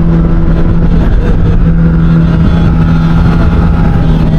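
Suzuki GSX-S 1000's inline-four engine through an SC-Project exhaust, running at a steady, nearly unchanging pitch while riding, with low rushing noise underneath.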